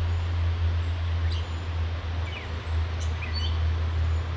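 A few short, high bird chirps about a second apart, over a steady low rumble and hiss of outdoor background.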